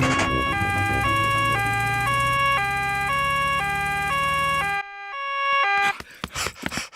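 Cartoon two-tone emergency-vehicle siren, switching between a high and a low note every half second, over a low engine hum. The hum cuts off about five seconds in, and the siren stops about a second later.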